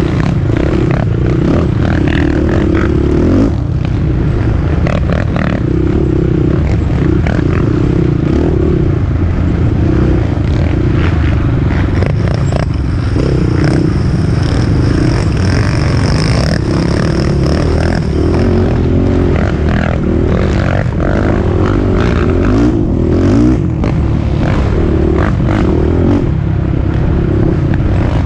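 Race quad (ATV) engine running hard, its note dropping and picking up again every second or two as the throttle goes off and on, with clatter and knocks from the machine bouncing through ruts.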